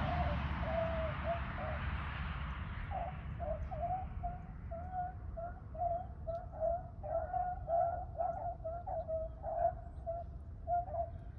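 A pack of rabbit hounds baying on a rabbit's trail, their voices overlapping in a steady run of short calls that comes thicker from about three seconds in. A rushing noise fades away over the first few seconds.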